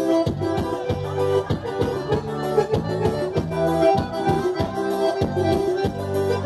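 Forró music in an instrumental passage without singing: an accordion playing the melody over a steady, regular beat.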